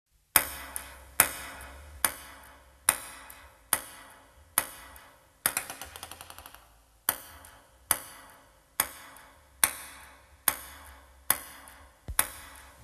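Ping-pong ball bouncing on a table-tennis table, sharp clicks about once a second, each followed by a short ring of echo. About halfway through comes a quick rattling run of small rapid bounces, then the steady bouncing resumes.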